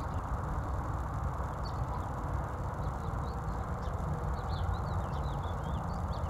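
Small birds chirping in short, quick notes over a steady low outdoor rumble.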